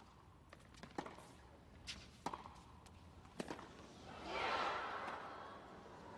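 Tennis rally: sharp pops of a tennis ball off racquet strings and court, about five in the first three and a half seconds. About four seconds in, crowd noise swells and then fades over a couple of seconds.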